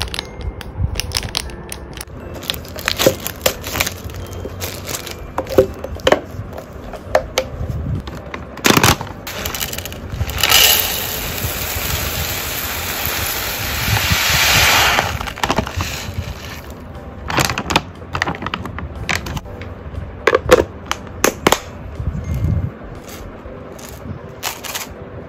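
Plastic packaging and a clear plastic container being handled, with scattered clicks and knocks. About ten seconds in, dry hamster seed mix is poured from a bag into the plastic container: a steady rattle of falling seeds lasting about four seconds.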